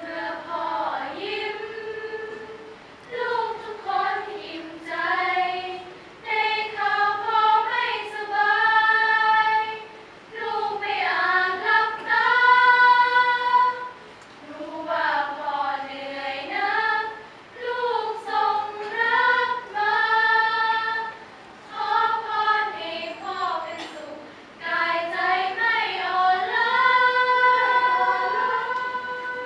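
Women's choir singing in several-part harmony, in sustained phrases of a few seconds each, with short breaks for breath between them.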